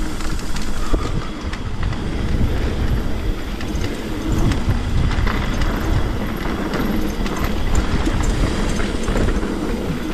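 Trek Remedy 8 full-suspension mountain bike descending a rough trail: a continuous rumble of tyres over the ground, with many small rattles and knocks from the bike throughout.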